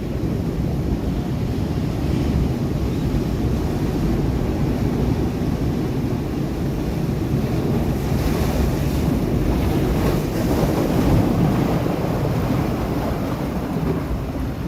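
Sea waves breaking on rocks: a continuous rumble of surf, with a louder wave washing in about eight seconds in. Wind buffets the microphone.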